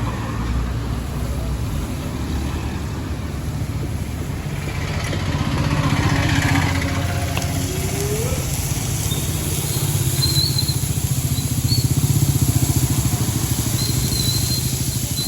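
A steady low engine rumble, the kind a running vehicle or motorcycle makes, with a brief rising whine about eight seconds in.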